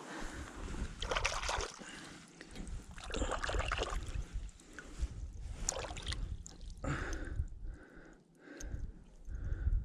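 Lake water splashing and sloshing in irregular bursts as a hooked trout is landed at the water's edge.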